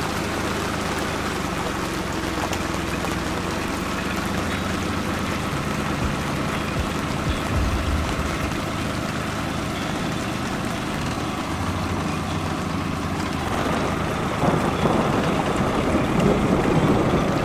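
Boat motor running steadily at trolling speed under a constant hiss of rain and wind on the water, with a brief low rumble about eight seconds in.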